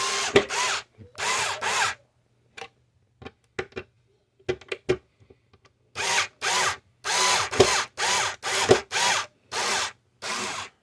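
Power drill run in short squeezes of the trigger, the motor speeding up and slowing each time. A longer run at the start, a few seconds of small clicks and knocks in the middle, then about ten quick bursts, roughly two a second.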